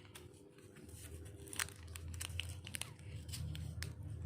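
Crinkling and tearing of small plastic toy packaging being handled, with scattered sharp crackles and clicks.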